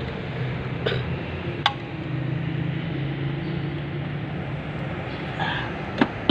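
Three sharp clicks of hand tools against metal engine parts, spread over a few seconds, over a steady low hum.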